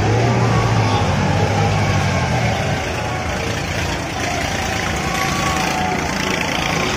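Steady fairground din: a continuous mechanical rumble of ride machinery over general crowd noise, with a low hum that is strongest in the first couple of seconds and then eases.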